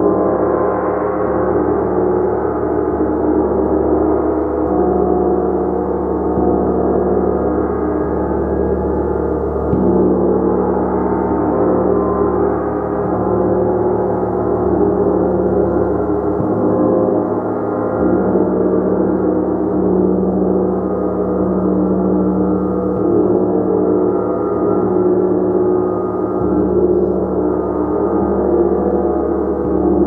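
A gong played continuously in a sustained wash: many overlapping ringing tones held at a steady level with gentle swells, its sound lying mostly in the low and middle register.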